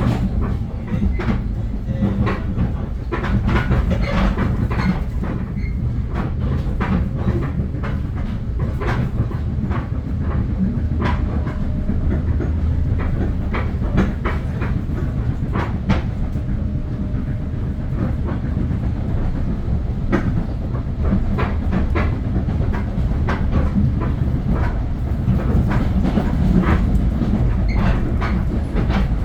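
Metro-North commuter train running along the track: a steady low rumble of the cars, with frequent irregular clicks and clacks of the wheels over the rails.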